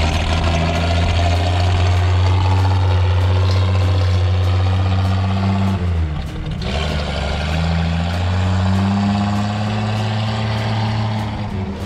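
1941 Chevrolet 3/4-ton truck's engine pulling away under load through its upright exhaust stacks. About halfway the revs drop for a gear change, then build again.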